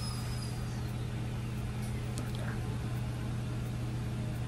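A steady low hum with a few faint small clicks about two seconds in.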